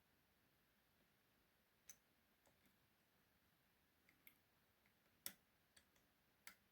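Faint, scattered metallic clicks of a piano-wire lever pick and tension tool working inside an ERA lever mortice lock, about six in all, the loudest about five seconds in.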